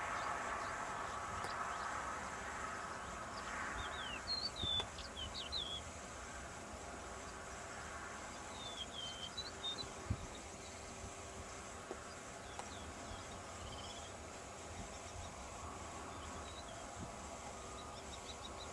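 Distant steady engine noise from an Airbus A350 XWB's Rolls-Royce Trent XWB turbofans as the airliner taxis, fading over the first few seconds. Small birds chirp in short clusters over it several times.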